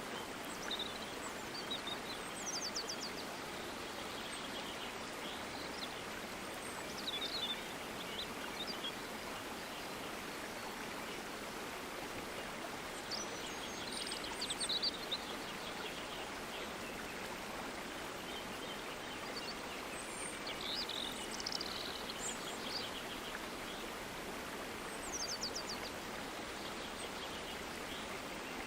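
Steady rush of flowing water, with birds chirping and giving short rapid trills now and then above it.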